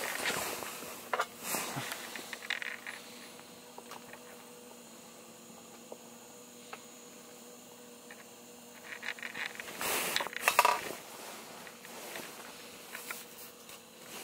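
Handling noises inside a tent: scattered rustling, scraping and light clicks, loudest in a cluster about ten seconds in, over a faint steady hum.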